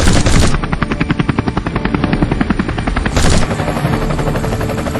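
Toy helicopter sound: a loud, rapid rotor chop that runs without a break, with a short sharp burst about three seconds in.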